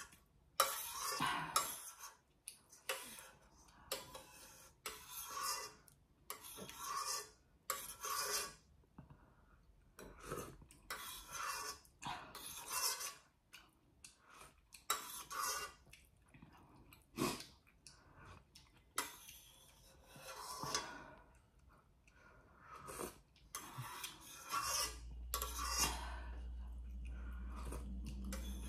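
Metal spoon clinking and scraping in a stainless steel pot as ramen broth is scooped, with sips of broth and chewing in between, in short irregular bursts. A low steady hum comes in near the end.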